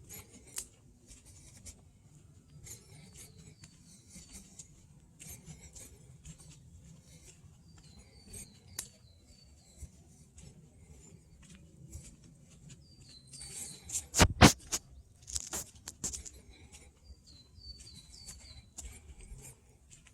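Forest birdsong: a small bird repeating short runs of high, falling notes several times. About two-thirds of the way through, a cluster of loud clicks and rustling.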